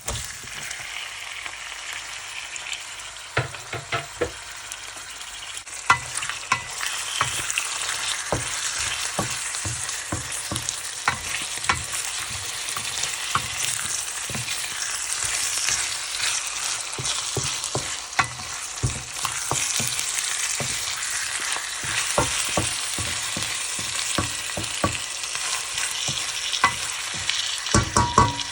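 Chicken pieces sizzling in hot oil in a pan with ginger and onion, being sautéed and stirred, with frequent clicks and scrapes of the stirring utensil against the pan.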